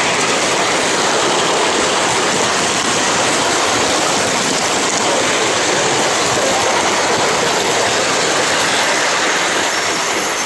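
G gauge model train running on the track, heard close up from a camera riding on the train as a steady rolling rush.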